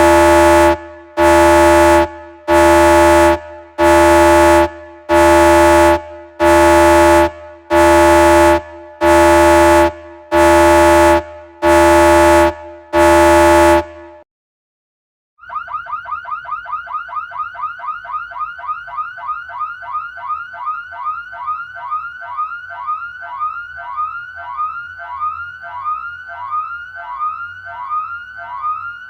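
Two alarm sound effects in turn. First a horn-like alarm with a strong low note sounds in about fourteen one-second blasts, roughly one a second. It stops about fourteen seconds in, and after a second of silence a rapid electronic warbling siren starts, about two pitch sweeps a second.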